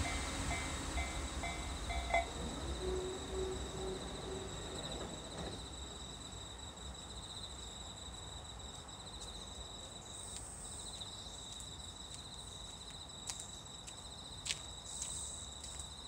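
A passing train's rumble dying away while the level-crossing bell rings in short, evenly spaced pulses for about two seconds and then stops. Insects then sing a steady high trill over the quiet.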